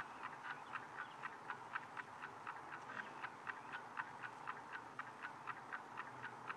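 Clock ticking steadily, about four ticks a second.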